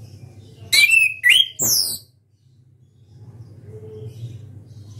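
Chestnut-capped thrush (anis kembang) singing a short, loud phrase of three quick notes about a second in, each sliding down in pitch, followed by a few faint, soft chirps.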